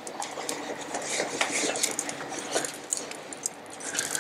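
Metal tongs clicking and scraping on a hot griddle plate as an oiled paper towel is wiped across it, spreading a thin film of flaxseed oil to season the griddle. The clicks come irregularly, several times a second.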